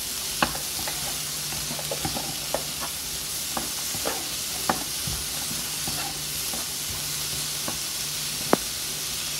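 Chopped onion, tomato and almonds sizzling in a frying pan as a wooden spatula stirs them, with scattered taps of the spatula against the pan, the sharpest one near the end.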